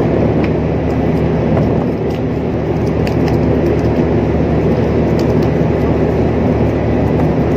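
Steady, loud drone of a large ship's machinery, a constant low hum with several steady tones, with a few faint small clicks on top.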